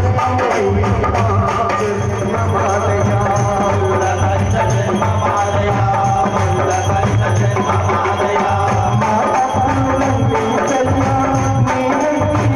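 Telugu Ayyappa devotional music: tabla-like hand drums and rattles keep a steady beat under a wavering melody line.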